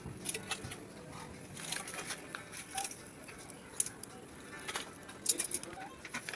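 Open cooking fire crackling under a wire grill of roasting sea urchins: irregular sharp clicks and pops throughout.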